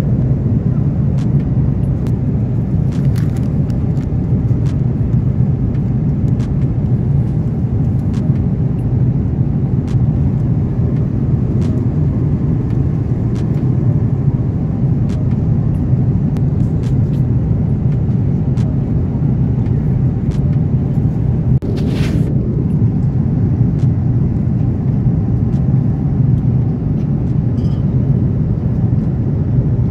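Airliner cabin noise in flight: a steady, loud low rumble of the engines and airflow. Light clicks from plastic meal containers being handled on the tray table, and a brief hiss about two-thirds of the way through.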